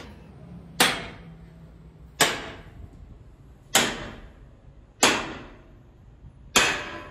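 Heavy hammer striking steel on a lathe holding a truck wheel rim: five hard metal blows about a second and a half apart, each ringing briefly.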